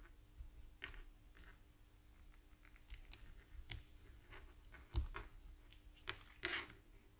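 Quiet, scattered clicks and light knocks of small metal parts handled by hand as a mobility scooter's throttle potentiometer, return spring and bracket are fitted back together. The sharpest knock comes about five seconds in.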